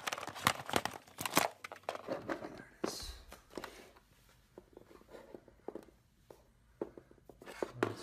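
Hard plastic clicking, knocking and rattling as the dust bin is worked loose and pulled off an older iRobot Roomba 561. The clicks come thick and fast for the first two seconds, a dull thump follows about three seconds in, then fainter scattered clicks.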